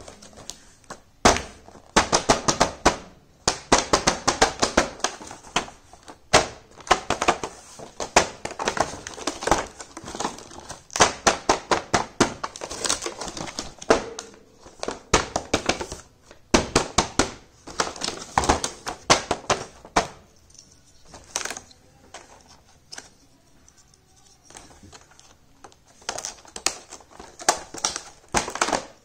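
Hands unboxing a miniature plastic toy set: packaging crinkling and small plastic pieces clicking and tapping in quick, irregular runs, with a quieter stretch past the middle before the clicking picks up again.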